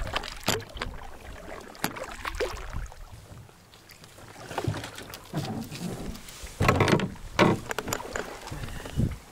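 Canoe being paddled: wooden paddle strokes pulling through lake water, with irregular splashes and a few sharp knocks, busiest about seven seconds in.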